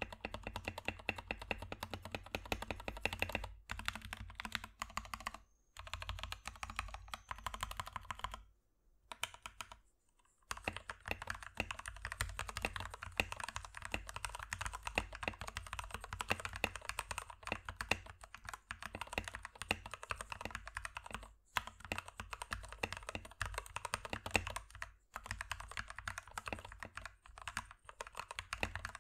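Typing on an Akko 3068v2 mechanical keyboard with factory-lubed Gateron Pink linear switches on a metal plate: rapid, even keystrokes with a few short pauses, one of about two seconds about a third of the way in. The keystrokes sound soft and smooth, with no rattle, ping or echo.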